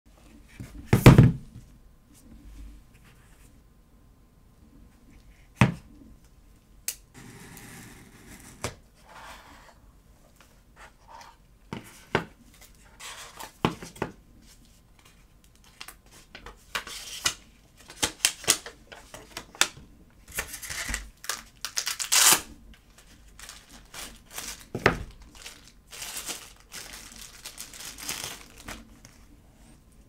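Cardboard box and paper packaging being opened and handled by hand, with tearing and crinkling and scattered knocks and clicks. There is a loud thump about a second in and denser rustling in the second half.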